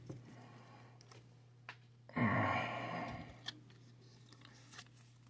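A man's sigh lasting about a second, about two seconds in, over the faint clicks of Pokémon trading cards being handled.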